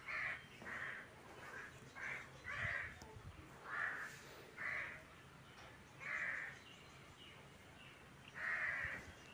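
Crows cawing, a run of about nine short harsh calls at irregular intervals with a few longer gaps.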